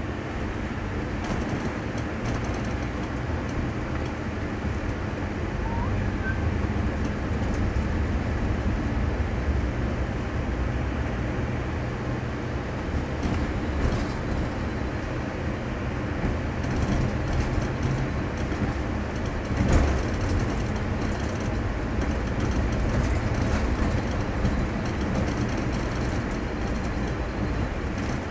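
Bus engine and road noise heard inside the cabin, a steady drone while driving, with one brief louder thump about two-thirds of the way through.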